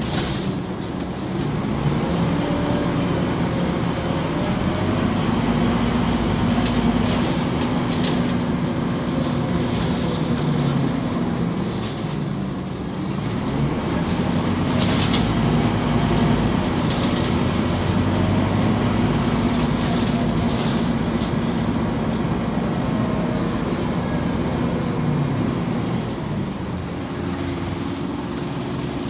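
Scania OmniCity city bus heard from inside the passenger cabin while driving: its engine note rises and falls with speed, and it settles to a steadier note near the end. Several short knocks and rattles come from the body along the way.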